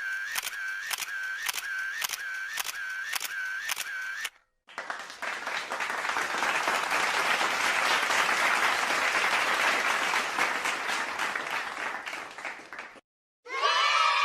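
A repeating clicking sound effect, about two clicks a second with a short tone in each, runs for about four seconds and stops. After a brief gap comes applause, a crowd clapping that swells and then fades for about eight seconds before cutting off.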